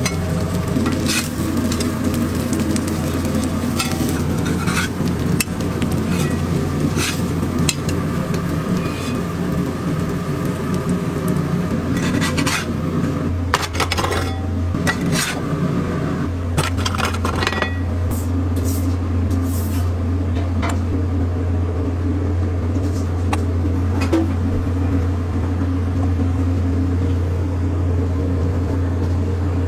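Metal spatula clinking and scraping on a flat-top griddle while cheeseburger patties sizzle, over a steady low hum. The clinks come in a busier run about halfway through.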